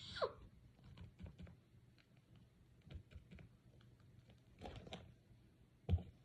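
Faint, scattered light taps and rustles of paper being handled, as pretend paper blush is dabbed and rubbed onto a paper squishy, with a couple of slightly louder taps near the end.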